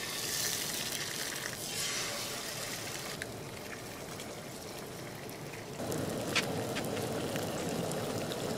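Eggs frying in a cast-iron skillet on a camp stove: a steady, crackling sizzle. It gets louder and fuller about six seconds in.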